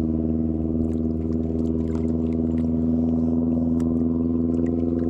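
An engine running steadily at a constant speed, a loud even drone, with a few faint light clicks over it.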